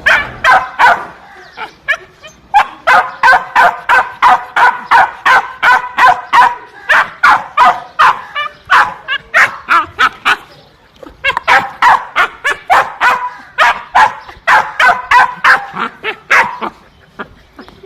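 Dogs barking in rapid runs of about three barks a second, with short pauses between the runs.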